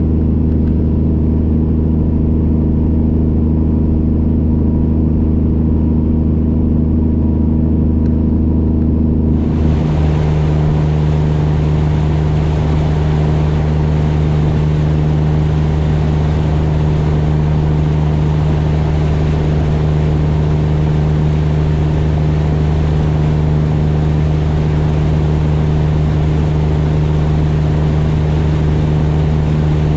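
Straight-piped Peterbilt 389's diesel engine running steadily at highway cruise, a deep drone holding one pitch. About a third of the way in, a loud hiss of road and wind noise joins it.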